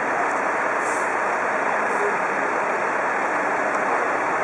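Heavy truck's diesel engine idling: a steady, even noise that does not change, with a couple of faint ticks.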